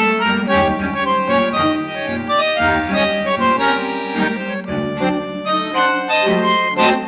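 Instrumental music played back through a t.c. electronic Finalizer 96K mastering processor on its Neutral preset, recorded straight from the line output rather than through a microphone. A busy melody of many changing notes runs over a bass line that drops in and out.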